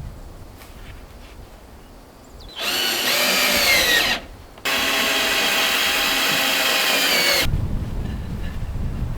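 Power drill running in two bursts, the first about two and a half seconds in, its pitch dropping as it stops, and a longer second one from about four and a half seconds to seven.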